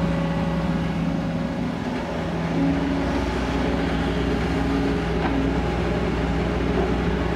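Kobelco SK200 excavator's diesel engine running steadily with a constant hum, and a higher tone that comes and goes every second or so.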